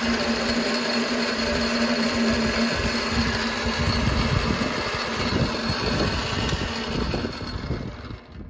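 Boxford Model A bench-top lathe running under power, a steady mechanical whir of its electric motor and geared headstock. A hum in it fades about three seconds in, and the sound dies away near the end.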